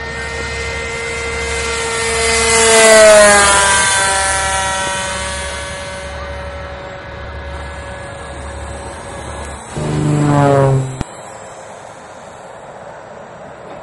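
Model airplane making two fast low passes: a high engine note with many overtones swells and drops in pitch as it goes by about three seconds in, and again around ten seconds, the second pass cut off abruptly.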